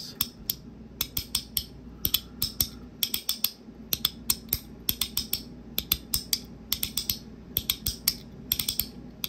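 3D-printed plastic SnapBack haptic fidget snapped over and over through its detent positions while cupped in the hand, giving loud pops. The sharp clicks come in quick uneven runs, several a second.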